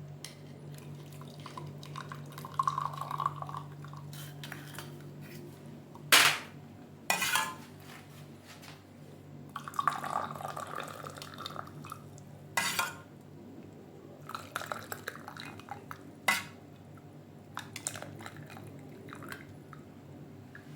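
Kitchenware clattering: metal utensils, cups and a pot knocking together in a few sharp clinks, with twice a short run of herbal tea being poured.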